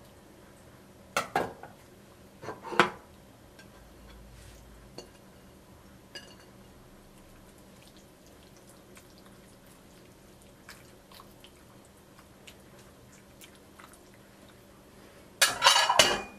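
Stainless steel cooking pot clattering as it is handled while kimchi is layered in. There are two short knocks in the first three seconds and a longer, louder rattle near the end, with faint small ticks between.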